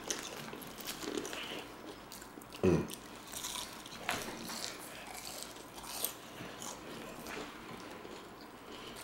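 Close-miked eating: bites and chewing of crispy battered fish sandwiches and fries, heard as scattered short crunches and wet mouth clicks, with one louder low sound a little under three seconds in.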